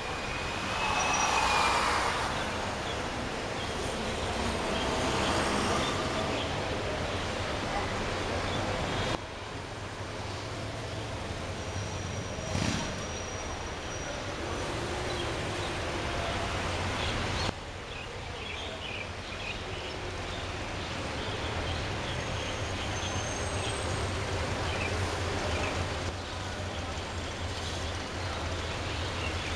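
Traffic noise heard from inside a car crawling through dense traffic: a steady low engine hum under road and traffic noise, with a louder swell near the start and a few sudden shifts in level.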